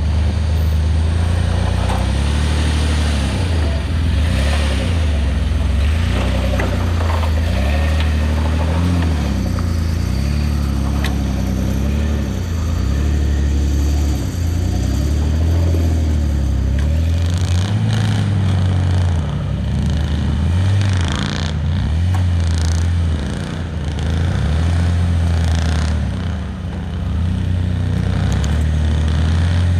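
Suzuki Grand Vitara's 2.7 V6 engine revving up and down over and over as the vehicle is driven hard, its pitch rising and falling about every couple of seconds. Scattered knocks and rattles come in around the middle.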